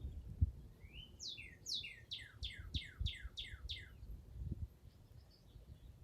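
A songbird singing one phrase: a rising note, then a fast run of about nine falling notes, ending about four seconds in. Faint low thumps and rumble run underneath.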